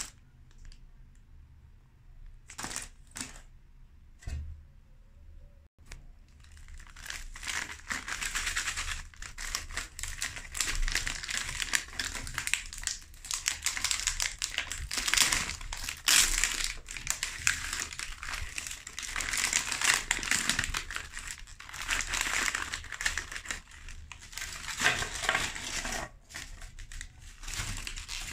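The crinkly plastic wrapper of a packet of chocolate wafer rolls is handled and torn open, giving a dense, continuous crinkling from about six seconds in. Before that there are only a few separate clicks and taps.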